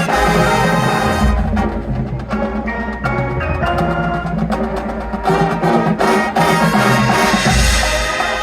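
High school marching band playing: brass and front-ensemble mallets with drums and timpani-like low percussion under sustained chords.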